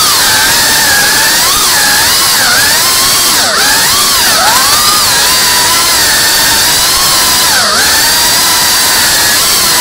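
FPV racing quadcopter's brushless motors and propellers whining, the pitch swinging up and down with the throttle and dipping sharply a few times, heard from the camera on board.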